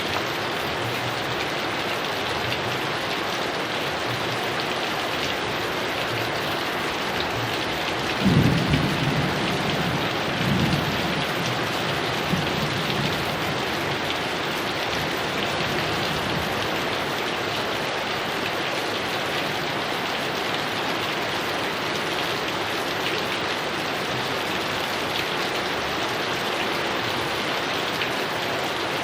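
Heavy rain falling steadily, with a roll of thunder that breaks in suddenly about a third of the way through and rumbles on for a few seconds.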